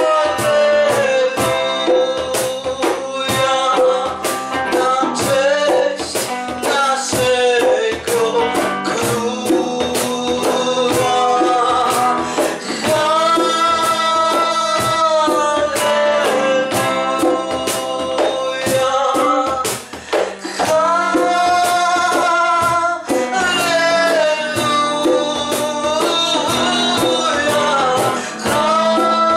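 A worship song: singing over a steadily strummed acoustic guitar.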